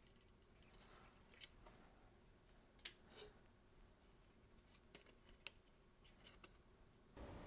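Near silence with a few faint, light clicks and taps from small camera parts being handled during a Sony a7s repair, the loudest about three seconds in. A faint steady hiss sets in just before the end.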